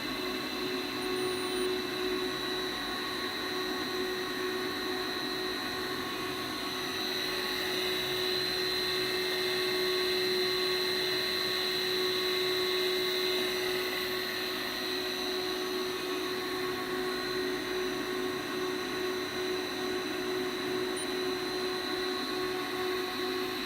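Electric motor running steadily with a whine of several fixed tones, one low and one high-pitched, swelling slightly in the middle.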